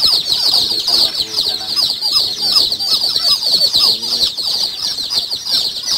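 A large brood of day-old kampung chicken chicks peeping nonstop, many high-pitched cheeps overlapping into one continuous chorus.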